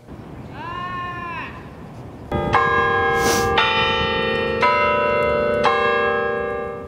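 Tower bells chiming a run of notes, roughly one strike a second, each ringing on into the next and dying away near the end. A short pitched sound comes just before the bells start.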